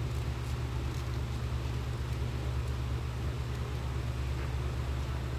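Steady low hum with an even hiss over it: the background noise of the arena broadcast, with no commentary and no distinct events.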